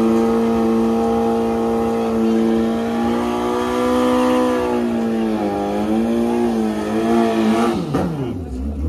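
Motorcycle engine held at high revs on one steady pitch during a drag-racing burnout, with tyre smoke at the start line; it wavers after about five seconds and drops away near the end.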